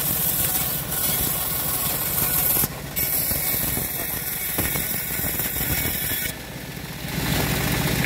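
Small engine running steadily, with abrupt shifts in level a few times.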